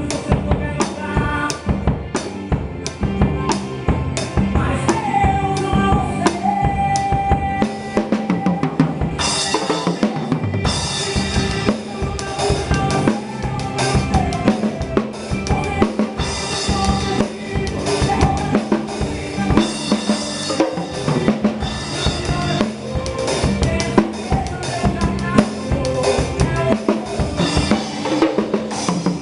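Instrumental passage of a forró gospel song: a drum kit with bass drum and snare keeping a steady beat under a melody line. The music grows fuller and brighter about nine seconds in.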